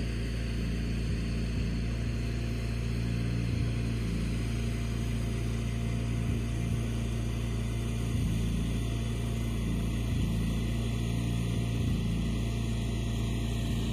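An engine running steadily at idle: an even low hum with a faint regular pulse in its tone.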